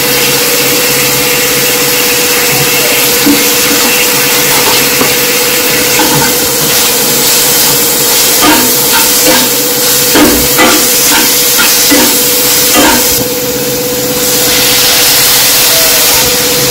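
Chopped onion, tomato and spices sizzling in oil in a non-stick kadhai, over a steady hum. A steel spatula scrapes and taps against the pan in a quick run of strokes about halfway through as the masala is stirred.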